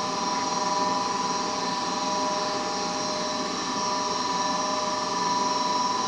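Goodman gas furnace's motor running with a steady whine that holds several fixed tones and does not change.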